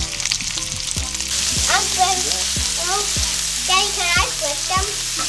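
Seasoned catfish fillets sizzling in hot butter in a cast-iron skillet as they are laid in. The frying hiss grows louder about a second in as more pieces go into the pan, with a few soft knocks along the way.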